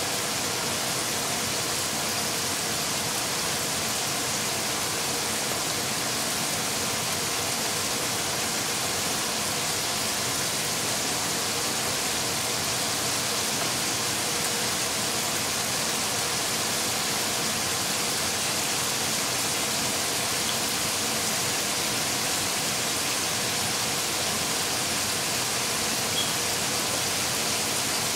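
Steady, even hiss with no speech, and one faint tick near the end.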